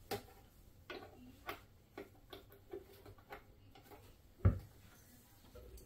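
Small clicks and taps of banana plugs and speaker wire being handled and pushed into the speaker terminals on the back of a stereo amplifier, with one louder knock about four and a half seconds in.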